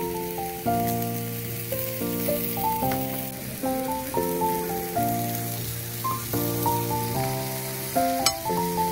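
Background music, a melody of held notes over a bass line, over the steady sizzle of beef and mushrooms grilling on a pan. There is a single click near the end.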